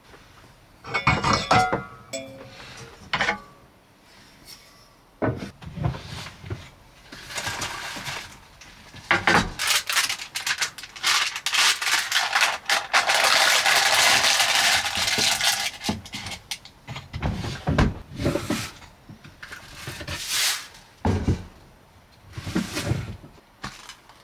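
Things being handled and set down: irregular clinks, knocks and rattles, with a steady hiss lasting a few seconds midway.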